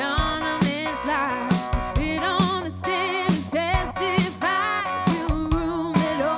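Background pop song: a singing voice over guitar and a steady drum beat.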